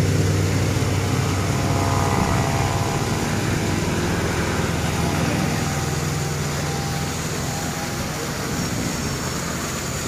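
A steady vehicle engine hum that eases off over the last few seconds, over a constant rush of noise from the small roadside waterfall.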